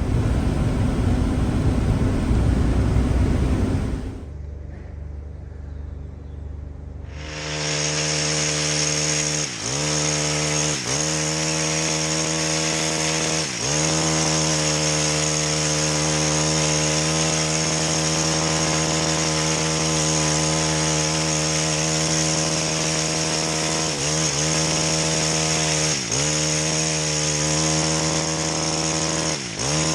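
A car's low road rumble for the first few seconds, then, from about seven seconds in, a chainsaw running steadily at high revs, dipping briefly in speed several times.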